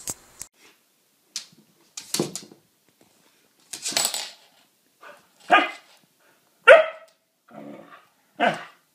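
A husky barking in short, separate calls, roughly one a second, several times over.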